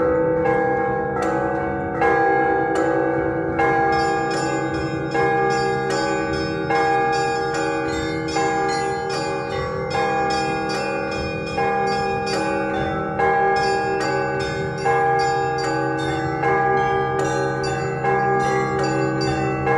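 Russian Orthodox festive bell ringing (prazdnichny zvon). Small bells are struck in quick patterns over the ringing of larger bells, with a louder stroke about every second and a half.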